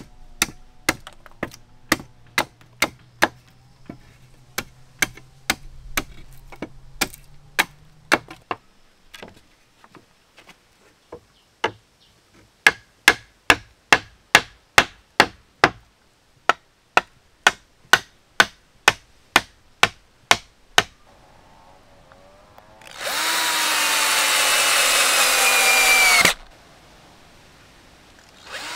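Steady hammer blows on wood, about two a second with a pause in the middle. Near the end a power drill runs loudly for about three seconds, its pitch sagging slightly under load, then starts again at the very end.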